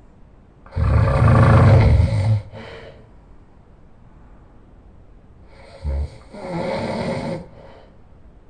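A man snoring very loud: two long snores about five seconds apart, each trailing off briefly, with quiet breathing between them.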